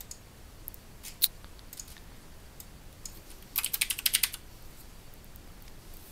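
Computer keyboard being typed on: a quick run of about ten keystrokes a little past halfway, after a few single clicks.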